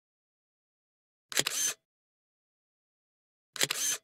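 Camera shutter sound, a quick double click with a short whir, heard twice about two seconds apart with dead silence between.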